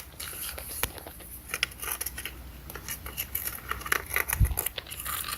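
Stones and gravel clicking and scraping irregularly as they are moved by hand, with one low thump about four and a half seconds in.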